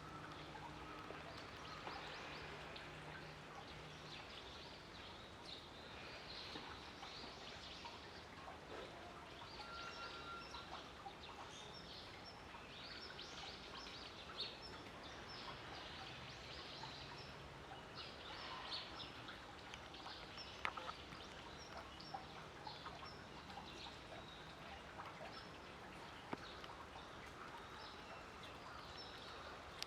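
Faint outdoor background noise with many short, high chirps scattered throughout, like small birds, and a few light clicks.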